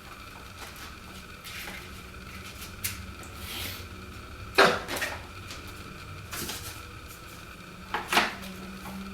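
Hard plastic objects being handled on a desk: a few sharp clicks and knocks, the loudest about halfway through and a quick double knock near the end.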